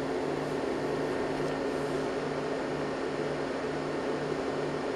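Steady hum and fan noise from running bench test equipment, with a low hum that pulses on and off about twice a second.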